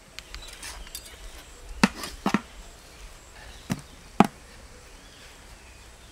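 A handful of sharp, irregular knocks from cooking utensils: one a little under two seconds in, a quick pair just after, and two more around four seconds in. They sit over a faint outdoor background.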